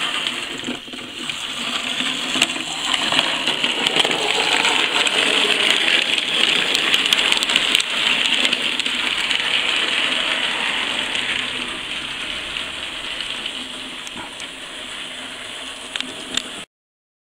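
H0-scale model steam locomotive and van running along the track, a steady whirring rush of motor and wheels on rail. It grows loudest around the middle as the train passes close, then fades, with a few sharp clicks along the way.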